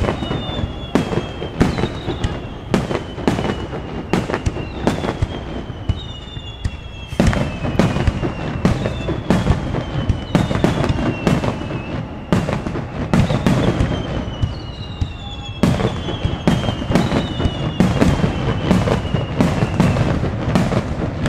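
Rapid barrage of aerial firework shells bursting in a display finale, several sharp cracks and booms a second over a continuous low rumble. High whistling tones slide down in pitch over them one after another.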